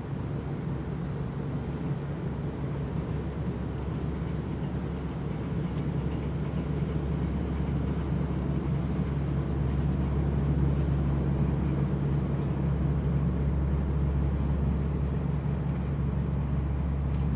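Low, steady machinery drone of a warship under way, slowly growing louder over the first half and then holding level.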